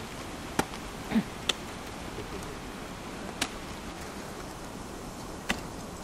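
Ice climber's ice axes and crampons striking frozen waterfall ice: about five sharp, separate hits spread unevenly through the seconds, over a steady background hiss.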